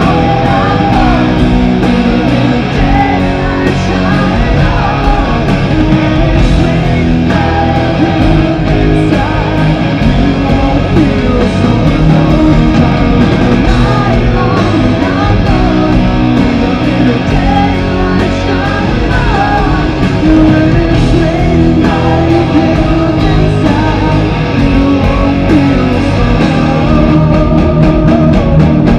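Live rock band playing: a man singing over electric guitar and drums.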